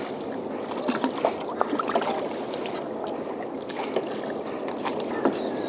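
Steady wash of water and wind noise, with a few small knocks and splashes scattered through it.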